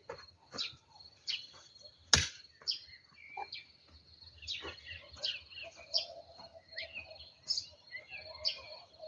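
Small birds chirping over and over in short, falling notes above a steady high insect trill, with one sharp click about two seconds in.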